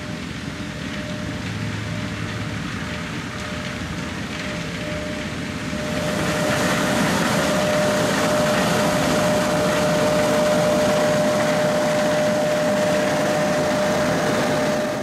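Self-propelled walnut pickup harvester running as it drives closer, with its engine and sweeping pickup gear growing louder about six seconds in. A steady high whine runs through it.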